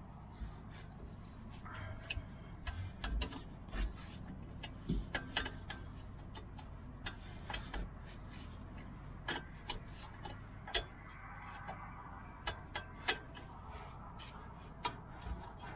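Ratchet wrench clicking in short, irregular runs as a brake caliper bolt is turned loose with a socket.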